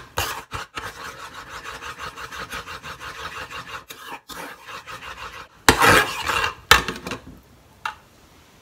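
A metal spoon scraping round and round the bottom of an aluminium saucepan in quick, even strokes, stirring soaked gelatin to dissolve it. About two-thirds of the way through the stirring stops and two loud clanks follow a second apart.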